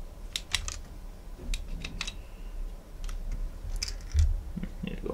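Sharp clicks and snips from a hand wire-stripping tool and the handling of a multi-core ribbon cable, with a dull knock about four seconds in.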